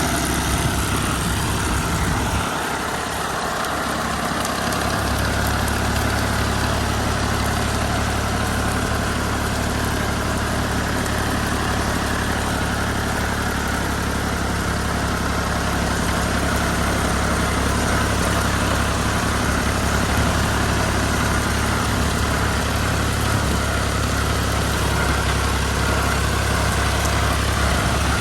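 Old Fiat 480 tractor's diesel engine running steadily. The deep hum thins out briefly about three seconds in, then carries on evenly.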